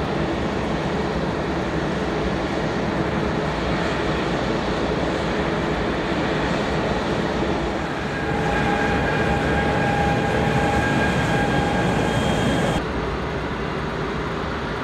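Airbus A340-600's Rolls-Royce Trent 500 jet engines running steadily on the ground, a continuous rumble and hiss. About eight seconds in a steady high-pitched whine joins, and it stops abruptly about thirteen seconds in.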